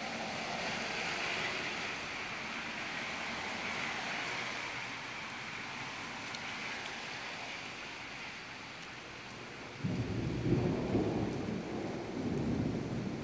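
Steady hiss of heavy rain. About ten seconds in, a sudden deep rumble of thunder breaks in and swells again a couple of seconds later.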